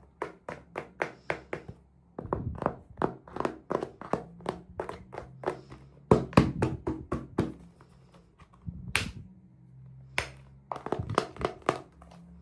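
Hands handling small plastic items, a rapid run of light taps and clicks with short pauses. Two sharper clicks come about nine and ten seconds in.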